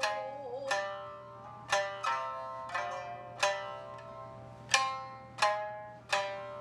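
Shamisen played with a plectrum: about nine single notes, unevenly spaced, each struck sharply and ringing away. A note just after the start bends down and back up in pitch.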